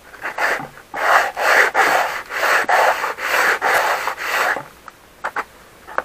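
Shark-fin antenna housing rubbed back and forth by hand on sandpaper, a rasping scrape at about two strokes a second. The strokes stop for about a second near the end, leaving a few light taps.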